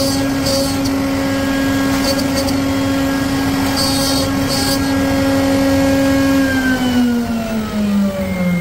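CNC wood-carving router spindle running with a steady whine, broken by a few short bursts of hiss. About six and a half seconds in, its pitch starts falling steadily as the spindle slows down.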